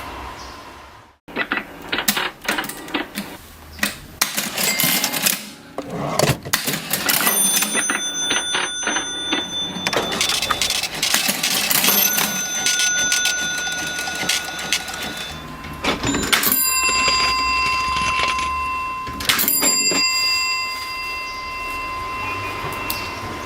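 Vintage mechanical cash register being worked: dense clacking of keys and levers, with its bell ringing out several times and holding on after each strike. The sounds start after a brief break about a second in.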